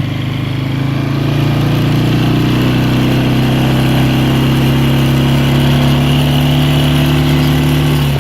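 Polaris four-wheeler engine running under throttle while riding; its pitch climbs slightly over the first two seconds, then holds steady and drops off at the very end as the throttle is let off.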